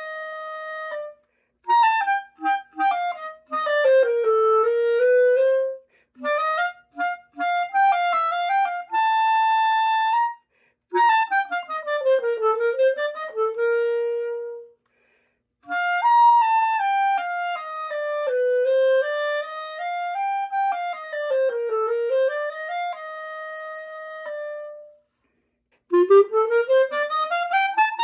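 Background music: a solo melody on a single wind instrument, played in short phrases separated by brief pauses, ending in a quick rising run.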